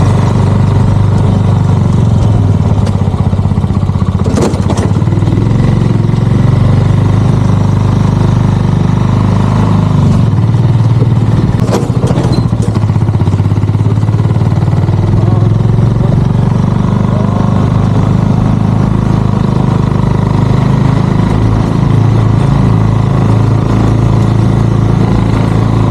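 Sidecar motorcycle's engine running steadily, with two brief knocks about four and twelve seconds in.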